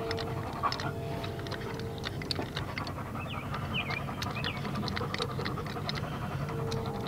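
Hand-pumped hydraulic crimping tool clicking as its handles are worked, crimping a new eyelet onto a backhoe battery cable to cure a poor connection. A dog pants close by.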